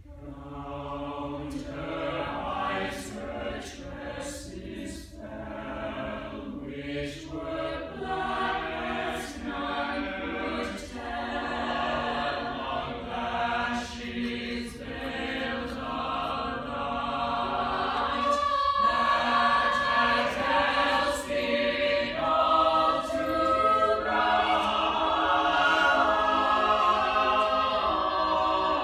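Mixed-voice high school jazz choir singing a cappella in close harmony. The singing comes in at the start and grows steadily louder, fullest in the second half.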